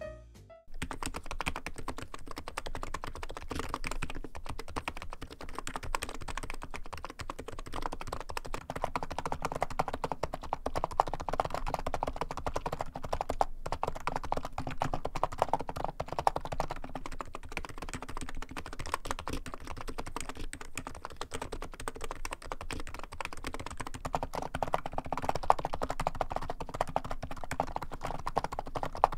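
Fast, continuous typing on a NiZ Atom68 keyboard with electrostatic capacitive switches. It is first heard with ordinary plastic keycaps, then, after a brief break about 13 seconds in, with Cerakey ceramic keycaps. The ceramic keycaps give a calm keystroke sound, with little of the high-pitched clack of the plastic ones.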